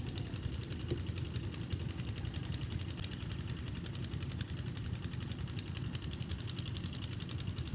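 A small engine running steadily, with a fast, even knocking beat.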